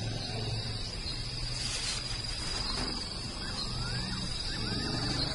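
Crickets chirping in a steady high trill, with a low rumble underneath at times.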